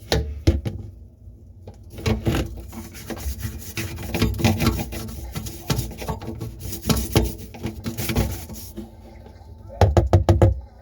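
Plastic sink drain pipes being handled. There are rapid, irregular knocks and clacks mixed with scraping rubs, with a loud cluster of knocks near the end.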